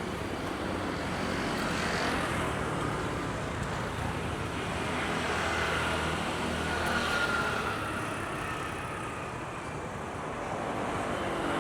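Street traffic noise from passing vehicles, swelling twice as vehicles go by.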